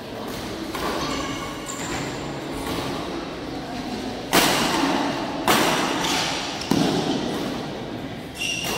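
Badminton rackets striking the shuttlecock in a rally: three sharp hits about a second apart in the second half, then a softer one near the end. Each hit rings briefly in the hall.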